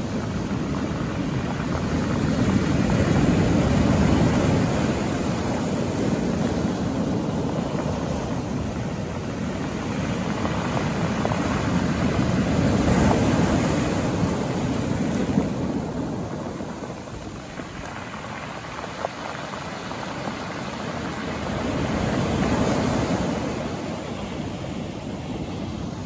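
Sea waves crashing and washing in over a pebble beach: a continuous surf noise that swells as each wave breaks and fades between them, three surges roughly nine seconds apart.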